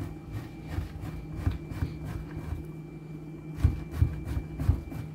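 Block of Chihuahua cheese rubbed down a stainless-steel box grater in quick strokes, about three a second, each a rasping scrape with a low thud. The strokes get louder about three and a half seconds in.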